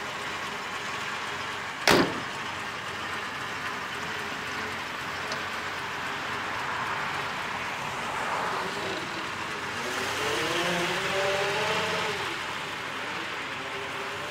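A 1928 Willys-Knight's driver door slams shut once about two seconds in, over the car's sleeve-valve engine running as it pulls away; around ten seconds in the engine's pitch rises and then falls as it gathers speed.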